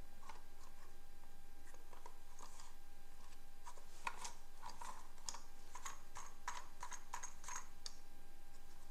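Light plastic clicks and taps from a toy police car being handled and turned in the hands, thickening into a run of quick clicks in the second half. A faint steady hum sits underneath.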